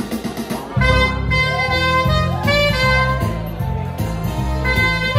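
Saxophone played live, holding and bending melody notes, over a steady bass and drum beat that comes in loudly about a second in.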